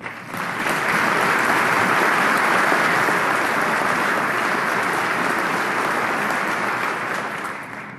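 Seated audience applauding. The clapping builds up over the first second, holds steady, and dies away near the end.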